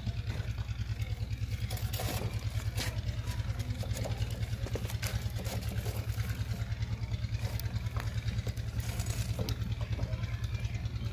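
A small engine running steadily, with a fast, even low pulse. Light clinks of steel rods being laid across the rim of a clay tandoor are heard every so often.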